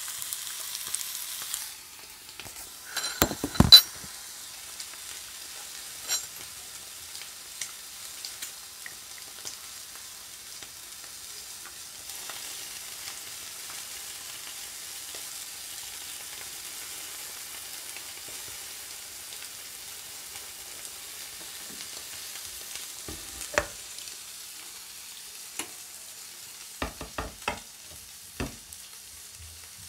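An egg with ham frying in a pan, sizzling with a steady hiss. A few sharp knocks come about three to four seconds in, and a handful more clicks near the end.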